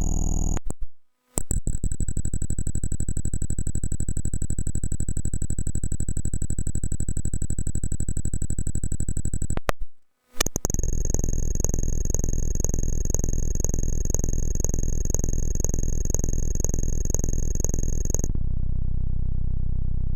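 Synthesizer sound-effect test: sustained buzzy electronic tones that cut out abruptly twice, the second passage pulsing about twice a second, then changing to a low steady drone near the end.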